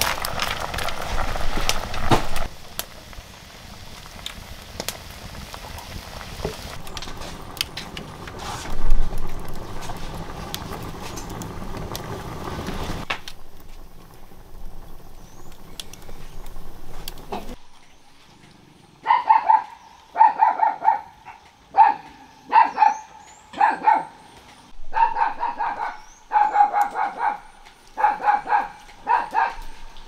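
Wood fire crackling under a bubbling cooking pot, with scattered sharp crackles. About two-thirds of the way in, a dog starts barking in a quick run of short, high yaps.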